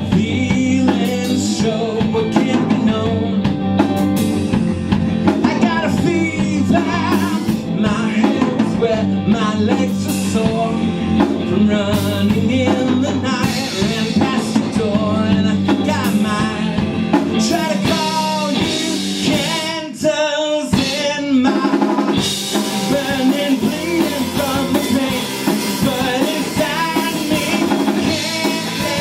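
A rock band playing live: drum kit, bass and guitars. The drums and bass drop out for about a second some twenty seconds in, then the full band comes back.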